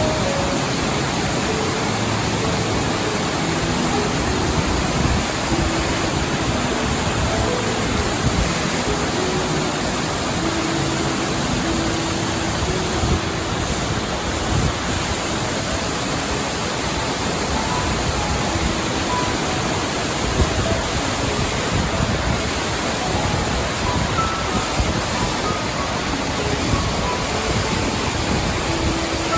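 Steady rushing of a waterfall, an even wash of water noise, with soft, sparse piano notes faintly above it.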